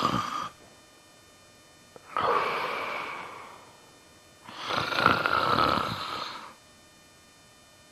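Recorded sleep snoring with pauses in breathing: loud, rough breaths about two seconds and five seconds in, each followed by quiet gaps. It is the gasping after a breathing pause that marks obstructive sleep apnea.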